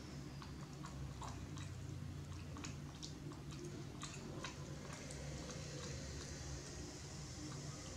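Soft, scattered clicks and smacks of a young macaque picking at and chewing a leaf-wrapped cake, over a steady low hum.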